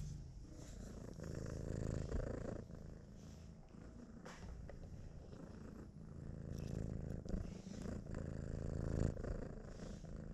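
A cat purring close to the microphone, a low fluttering rumble that swells twice, once about a second in and again past the middle.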